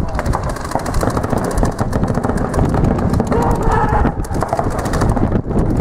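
Paintball markers firing in rapid strings, many shots a second, with shouts from players over the top.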